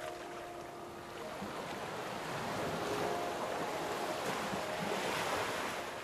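Rushing wind on the microphone of a moving bike, swelling louder over the second half, with faint background music underneath.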